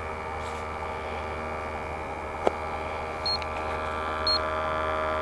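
Testo 320 combustion analyzer's sample pump running with a steady hum while it takes an ambient CO reading. There is a single click about halfway, then short high beeps from the analyzer about a second apart near the end.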